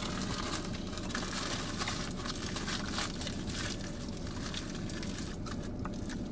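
Faint rustling and crinkling of a paper sandwich wrapper being handled, over a steady low rumble inside a car.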